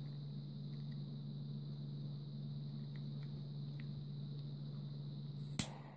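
Steady low hum in the background, with a few faint ticks as a small butane torch lighter is handled. Near the end comes a single sharp click from the torch's push-button igniter, followed by a faint hiss of gas.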